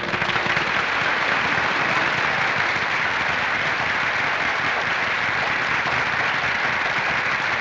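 Audience applause, a dense steady clapping.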